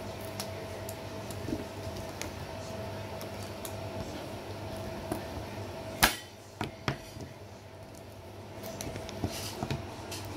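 Scissors snipping through a micro servo's three-wire lead: one sharp snip about six seconds in, followed by two lighter clicks soon after. A steady hum and small handling clicks sit underneath.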